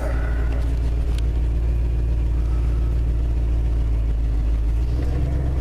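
1974 Ford F250's engine running steadily, heard from inside the cab shortly after a cold start.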